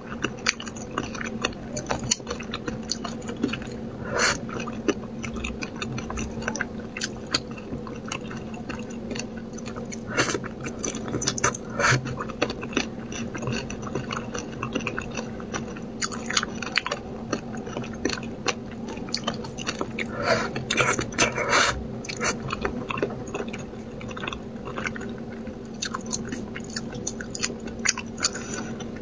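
Close-miked eating of spicy braised fish: chewing, with chopsticks picking and scraping in the bowl, making many small sharp clicks throughout.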